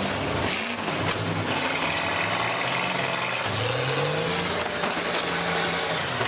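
School bus engines revving in a demolition derby, their pitch rising and falling several times over steady background noise.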